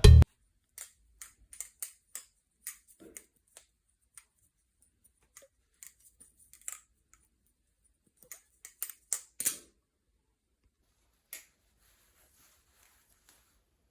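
Titanium-handled balisong (Atropos Spy) being flipped: irregular sharp metallic clicks and clacks as the handles and blade swing and close, in scattered clusters, the loudest a heavier clack about nine and a half seconds in.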